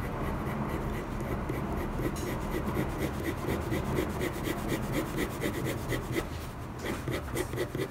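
Red coloured pencil shading on paper in fast, even back-and-forth strokes. The pencil is held at steady pressure, building the colour up to the point where the paper will take no more.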